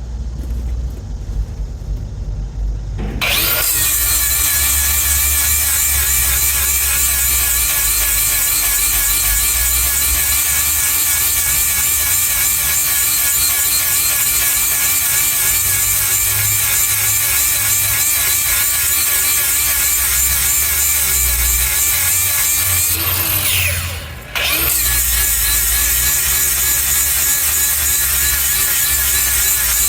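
A handheld power grinder sharpening the steel teeth on a Bandit Beast 4680's mill. It starts about three seconds in and runs loud and steady, its motor pitch wavering slightly. It stops for about a second some six seconds before the end, then starts again.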